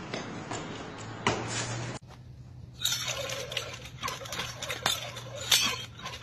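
Nunchucks being swung, with sharp clacks and clinks from the sticks and chain over steady outdoor background noise. The background changes abruptly about two seconds in.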